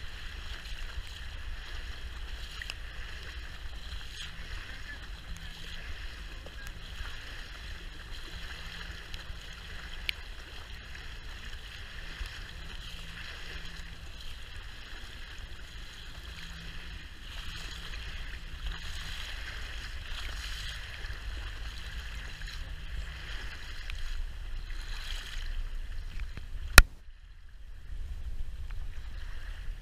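RIB boat under way at low speed: a steady low rumble of its engine with water rushing along the hull and wind on the microphone. Near the end there is a single sharp click, followed by a moment's quieter sound.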